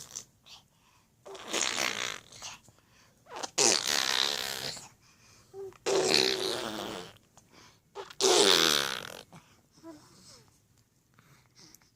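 Raspberry snoring from a sleeper: four long, loud snores about two seconds apart, then fainter breathing sounds near the end.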